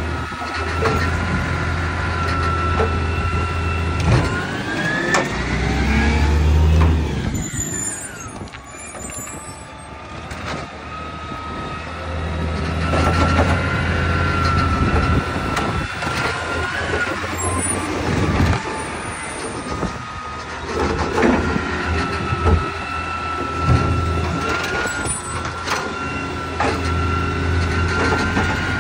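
Side-loading garbage truck running as its hydraulic arm lifts and tips green-waste wheelie bins: a steady engine drone with a steady whine above it, one whine that climbs and then falls back about five to nine seconds in, and occasional knocks from the bins and arm.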